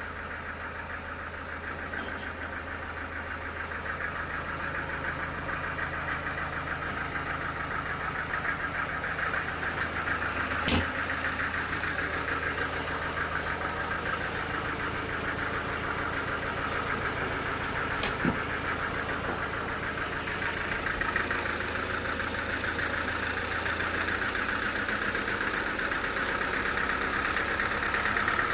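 An engine-driven machine running steadily, with a sharp knock about eleven seconds in and another about eighteen seconds in.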